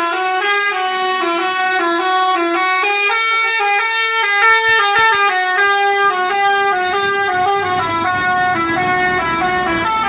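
Basuri musical horn on an intercity bus playing a melody: a quick run of clear stepped notes, each changing to the next within a fraction of a second.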